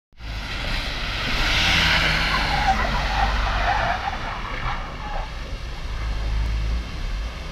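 Bus driving across a wet skid pad sprayed by water jets: a hiss of spray and tyres on wet asphalt, with a brief wavering squeal in the middle, over a steady low rumble.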